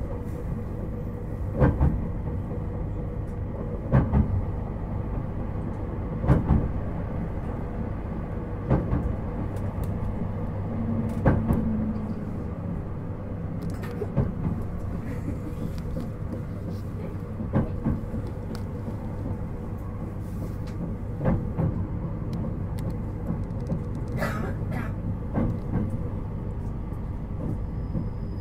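Running noise inside a JR Hokkaido 721 series 4000 electric train with Toshiba GTO inverter, a steady low rumble with the wheels clacking over rail joints about every two and a half seconds. The clacks come a little further apart in the later part as the train nears its stop.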